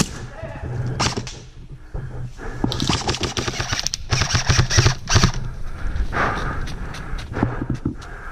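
Airsoft guns firing in rapid bursts: dense runs of sharp clacks about three to five seconds in, with a few single shots earlier.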